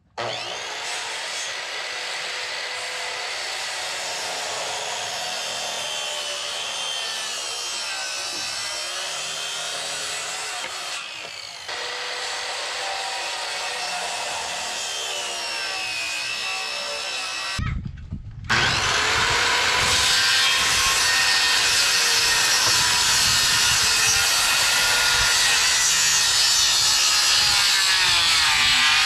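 Circular saw cutting stair-stringer notches into a 2x12 board, running continuously with its pitch sagging and recovering as the blade takes load. It stops for a moment about two-thirds of the way through, then resumes louder.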